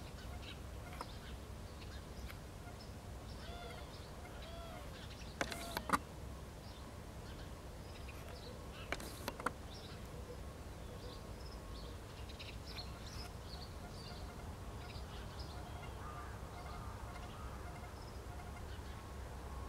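Birds calling in the distance, with scattered short chirps and a few arched calls, over a steady low rumble. Sharp clicks come twice: a cluster about five to six seconds in, and another about nine seconds in.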